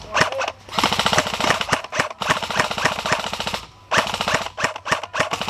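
Airsoft guns firing full-auto: rapid, evenly spaced clicking shots in about four long bursts, with short pauses between.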